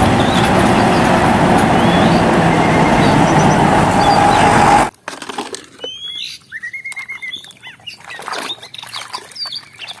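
Full-size coach bus running, loud and steady, cutting off suddenly about five seconds in. After that, quieter splashing as a toy is swished through a tub of soapy water, with birds chirping.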